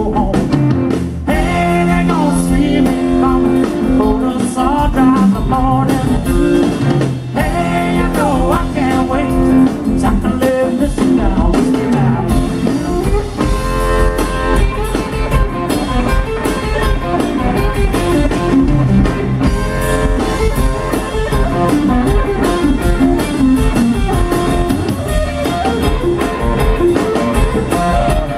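Live blues band playing: electric guitar over drum kit and electric bass, loud and continuous.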